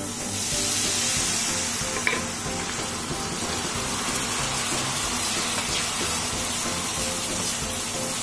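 Soy sauce sizzling as it is poured into hot melted butter and browned garlic in a pan. The sizzle flares up as it goes in, then settles into a steady sizzle while a wooden spatula stirs it, with a single knock about two seconds in.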